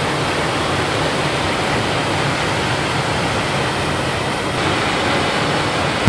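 A steady, even hiss of rushing noise with no engine note or other distinct tone in it. It cuts off abruptly at the end.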